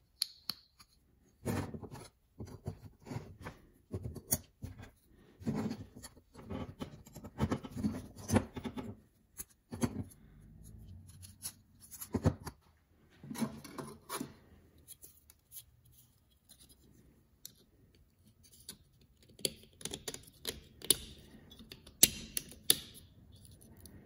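Knife parts (scales, steel liners, blade and pins) being handled and fitted together: irregular clicks, taps and short scrapes of hard pieces against each other and the workbench.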